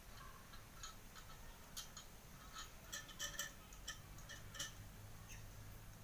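Faint, irregular light clicks and ticks of metal wire being handled as the wire latch on a cage door made from table-fan guards is set and worked.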